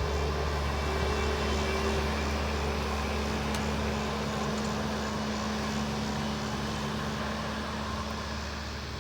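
Skid loader's diesel engine running steadily with a low hum, slowly growing fainter.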